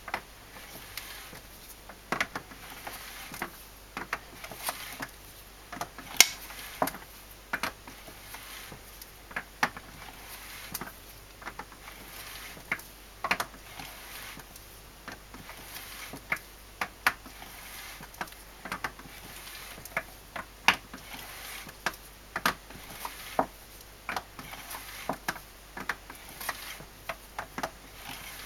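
Valvetrain of a Toyota 2T-B cylinder head being turned over by hand, giving irregular sharp clicks from the rocker arms and valves, roughly one or two a second.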